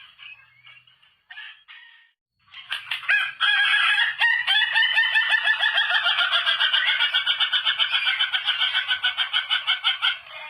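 Rooster giving a long crow that sounds like laughter: a few short calls, a brief pause, then a stuttering run of many quick, even pulses lasting about seven seconds.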